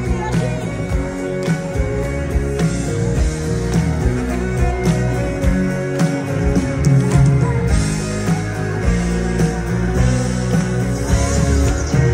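Live band playing an instrumental passage with guitar, between the sung lines of a pop-rock duet ballad.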